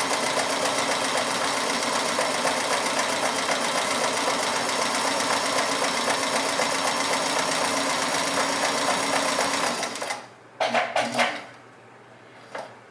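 Kenmore 158.14100 all-metal sewing machine running steadily, sewing a decorative stitch. It stops about ten seconds in, followed by a few short knocks.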